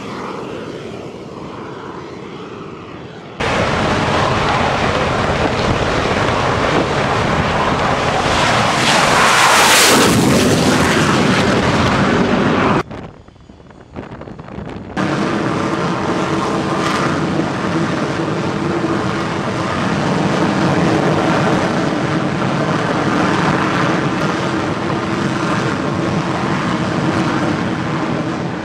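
Northrop Grumman X-47B's turbofan jet engine running loud on an aircraft carrier's flight deck, in several spliced clips. A jet rush swells to its loudest about ten seconds in and breaks off suddenly; after a short quieter gap the engine runs steadily with a high whine.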